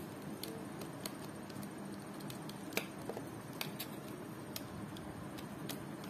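Scattered light plastic clicks and taps, about seven at uneven intervals with the sharpest near the middle, as a small USB memory-card reader is handled at a laptop's USB port, over a low steady room hum.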